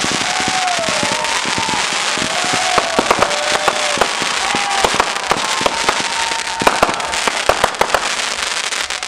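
Fireworks going off: a continuous dense crackling with many sharp pops and bangs scattered throughout.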